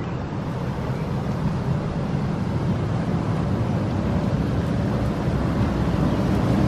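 Outdoor hot tub's jets running, churning the water in a steady rushing noise that grows louder toward the end.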